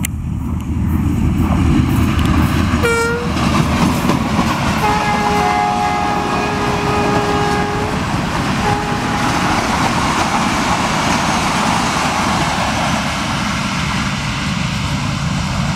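ZCU-30 diesel-electric locomotive and its passenger coaches passing at speed, with a steady rumble and rushing wheel noise. The horn gives a short toot about three seconds in, then a long two-note blast lasting about three seconds, and a brief toot just after.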